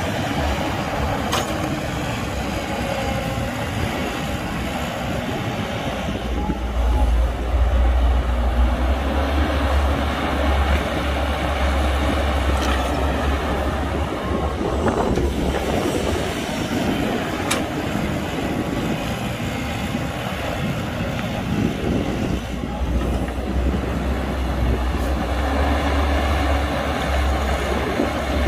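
CAT 312 hydraulic excavator's diesel engine running under load as it digs and loads dirt, with a deep rumble that swells twice for several seconds, and a few faint clanks.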